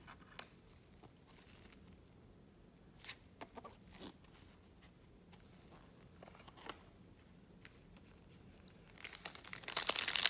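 Soft clicks and rustles of trading cards being handled, then about nine seconds in a loud run of crinkling and tearing as a foil Topps Chrome card pack is ripped open.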